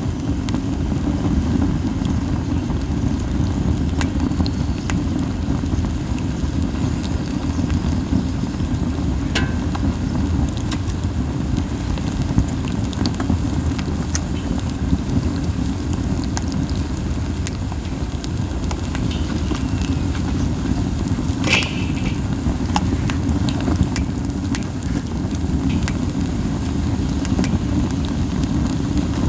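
Campfire of burning pine cones: a steady low rumble from strong flames and wind buffeting, with sparse soft crackles and pops.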